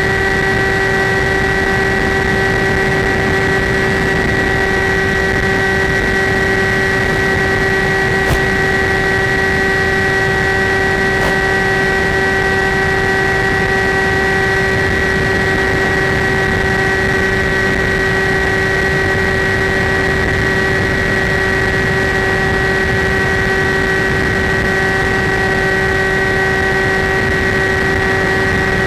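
Skywalker RC model plane's electric motor and propeller running at steady throttle: a constant, unchanging whine.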